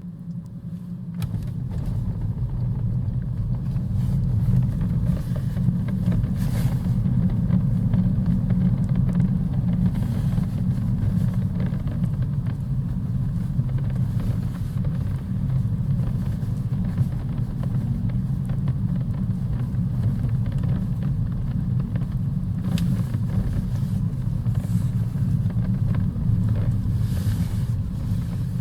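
Lexus CT 200h cabin noise while driving: a steady low rumble and drone that builds over the first couple of seconds and then holds. It carries the vibration and rattle from behind the door trim that the video is about.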